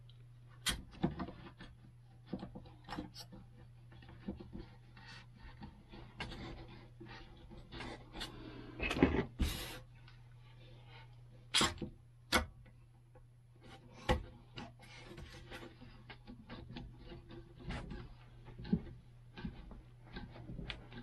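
Metal bar clamps being handled and fitted against a wooden skateboard deck: scattered clicks, knocks and metal rattles with rubbing in between, the loudest cluster about nine seconds in. A steady low hum runs underneath.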